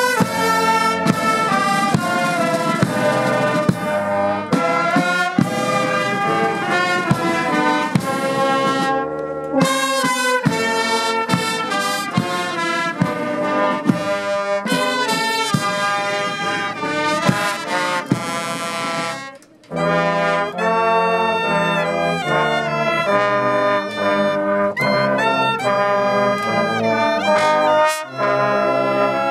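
Brass band of trombones, trumpets and saxophones playing a lively tune, with a short break about two-thirds of the way through before the band comes back in.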